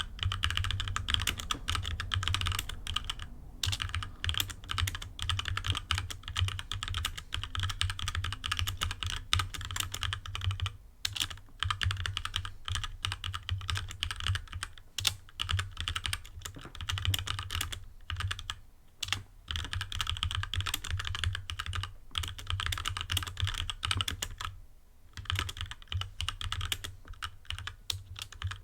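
Steady fast typing on a HyperX Alloy Origins Core mechanical keyboard with HyperX Red linear switches: a dense, uneven run of key clacks, broken by a few brief pauses.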